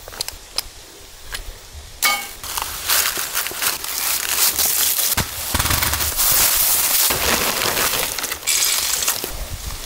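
Close hand-handling noise from setting a raccoon trap. It opens with a few sharp clicks and clinks, then from about two seconds in there is a continuous crackling rustle. That rustle comes from a metal anchor chain and dry leaves being handled, and from dry dog-food kibble being scooped out of a plastic zip bag.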